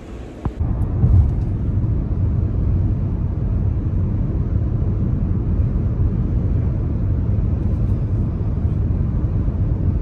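Steady low road rumble of a car cruising on a freeway, heard from inside the cabin.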